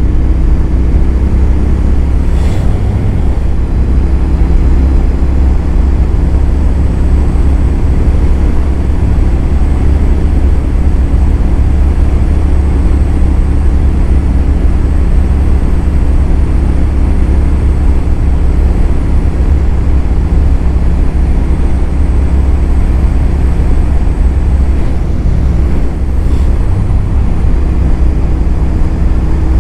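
Royal Enfield Continental GT 650's parallel-twin engine running steadily at cruising speed, with wind and road noise over the microphone.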